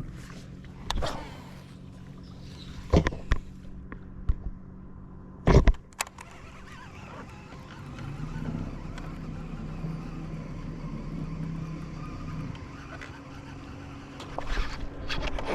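Low steady hum of an electric trolling motor on a fishing boat, a little louder for a few seconds in the second half, with several sharp knocks in the first six seconds.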